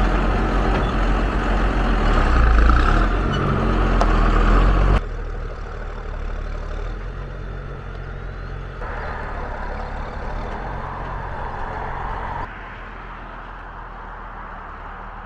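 Pickup truck with a slide-in camper, engine running as it drives slowly along a rutted dirt track. A loud low rumble for about the first five seconds, then quieter and steady, with abrupt changes in level.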